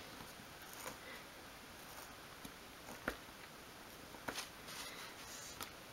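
Flathead screwdriver tip digging and scraping into a thin wooden miniature door to age it with dents and cracks: a few faint, scattered clicks and scratches, the sharpest about three seconds in, over quiet room tone.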